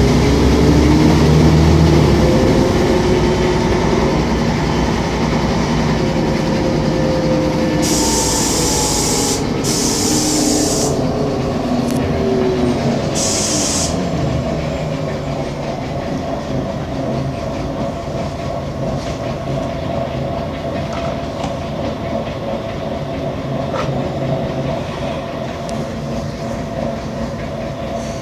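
Mercedes-Benz O500MA articulated bus under way: its diesel engine's pitch rises and falls with speed, then settles into steadier running. Two loud bursts of compressed-air hiss come about a third and half of the way through.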